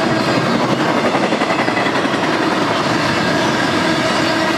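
Double-stack container cars of a freight train rolling past, making a steady, loud rumble of steel wheels on rail.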